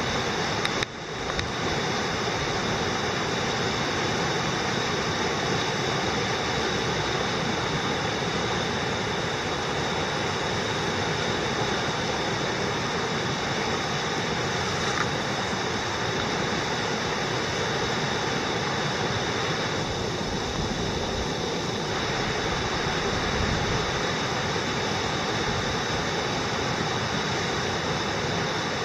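Flash-flood water flowing down a desert wash, a steady rushing of muddy, debris-laden water.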